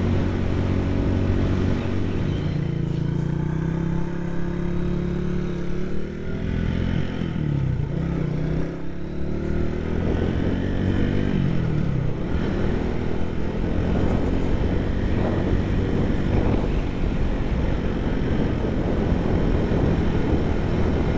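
Motorcycle engine running while riding, its pitch rising and then dipping twice in the first half as the revs change, over a low wind rumble.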